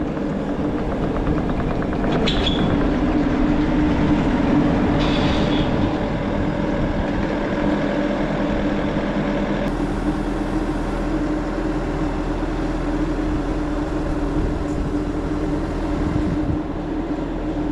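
A vehicle engine running steadily under load with a low, even hum, pulling the pontoon boat and its trailer up out of the water, with brief rattles about two and five seconds in.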